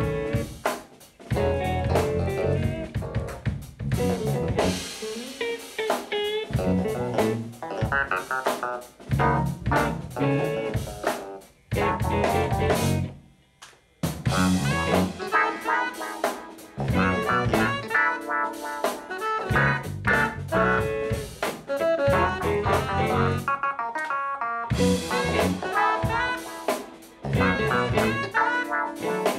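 Live jazz-funk band playing drum kit, electric guitar and keyboards in a stop-start groove. The whole band cuts out briefly about halfway through and again near the end.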